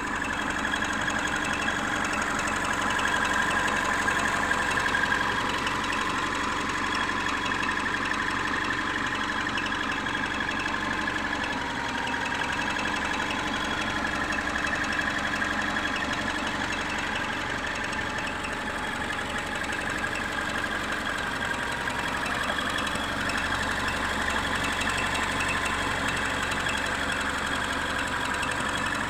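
Subaru engine idling with a steady high squeal from a bearing in the belt-driven accessories, which the owner takes for a worn water pump or alternator bearing.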